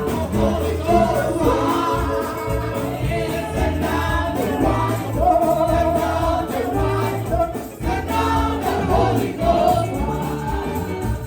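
Gospel praise song sung by a choir over steady instrumental backing with a low bass line.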